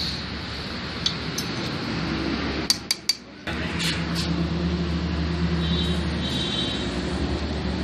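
Small steel engine parts, a gear and a washer, clinking as they are handled and fitted on the crankcase, with three sharp clicks close together about three seconds in. A steady low hum runs underneath, dropping out briefly just after the clicks.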